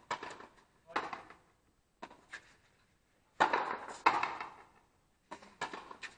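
Frontenis rally: sharp smacks of the rubber ball being struck by stringed racquets and hitting the front wall, each with a short echo. There are about ten hits, some in quick pairs, with the loudest in the middle.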